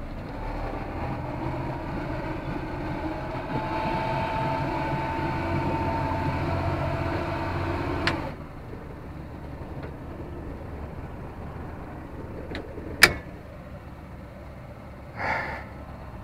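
Outboard motor of a MacGregor 26-X sailboat running steadily under way. About halfway through, its sound drops off sharply with a click, leaving a quieter hum, and later comes a single sharp knock.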